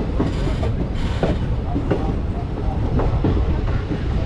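Passenger train running along the track, heard from aboard: a steady low rumble with the wheels clacking irregularly over the rails.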